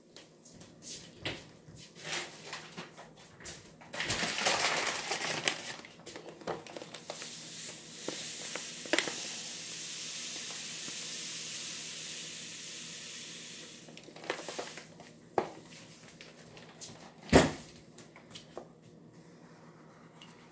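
Kitchen handling sounds while sugar is fetched: scattered clicks and knocks, a couple of seconds of rustling, then a steady hiss lasting about six seconds, and a single thud near the end.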